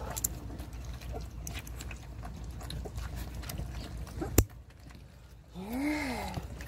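Young German Shepherd x Belgian puppies eating at a food bowl, with small wet clicks of lapping and chewing. A sharp knock about four seconds in, then a puppy's short whine that rises and falls near the end.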